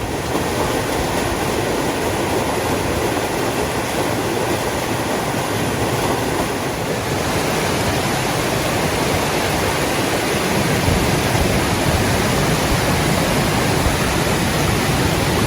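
Rushing mountain stream: a loud, steady whoosh of water, with a low rumble joining about two-thirds of the way through.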